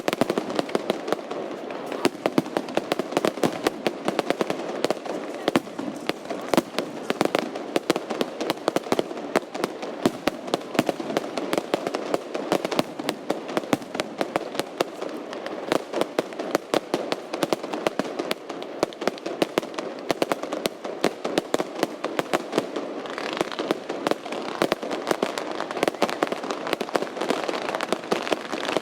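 Fireworks display going off: a dense, unbroken run of rapid crackles and pops over a steady rumble, with a brighter hissing layer joining about three quarters of the way through.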